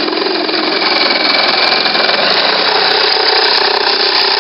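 Handheld power cutting tool running steadily as it cuts through fiberglass hull around an old mast step.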